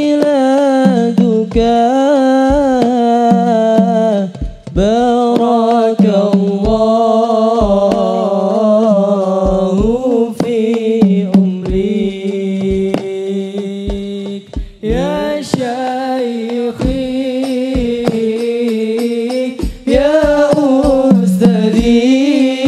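Sholawat performance: a solo voice singing long, wavering melismatic phrases in Arabic style, with short breaks between phrases, over a steady low drone and scattered frame-drum strokes.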